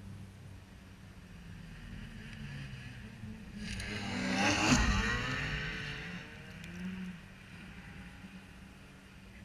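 Snowmobile's two-stroke engine revving hard as the sled launches past. It is loudest about halfway through, and its pitch drops as it goes by and fades away. A sled engine idles low underneath.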